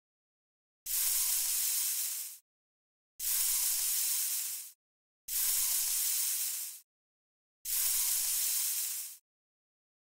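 Four bursts of hissing noise, each about a second and a half long, starting sharply and tailing off, with dead silence between them.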